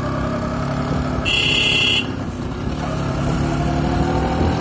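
Motorcycle engine running on the move, with road noise. About a second in, a horn beeps once, short and shrill. Near the end the engine pitch rises as the bike speeds up.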